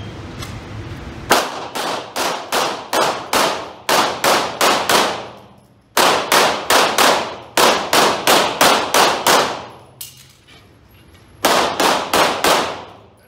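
Handgun firing rapid strings of shots in an indoor range, each shot ringing off the walls. There are three strings: a long one, a pause, another long one, then a short string of about five shots near the end.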